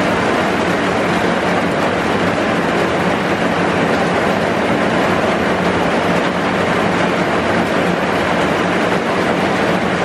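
Heavy rain pouring steadily, heard from inside a bus shelter: a loud, even hiss that does not let up.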